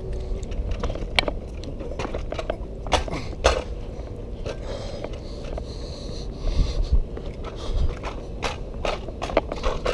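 Lime electric scooter rolling over paving slabs, its small hard wheels clattering and knocking over the tile joints above a steady low road rumble.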